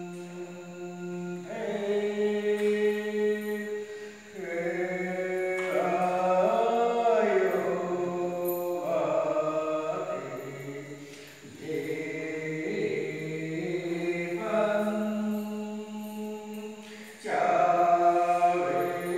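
Hindu devotional aarti chant, sung in long held notes that move in pitch from phrase to phrase, with short breaks between phrases.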